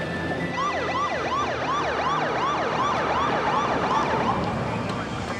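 Police car siren in a fast yelp, its pitch sweeping up and down about three times a second. It starts about half a second in and fades near the end.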